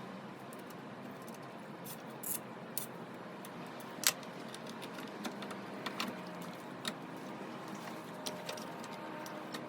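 Light clicks and taps, about a dozen at irregular intervals and the sharpest one about four seconds in, over a steady low background hum.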